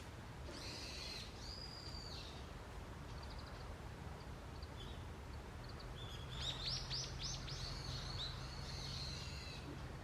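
Wild songbirds calling in a forest in the early morning: a short burst of calls about half a second in, scattered chirps, then a fast run of sharp descending notes from about six seconds in, over a steady low background hum.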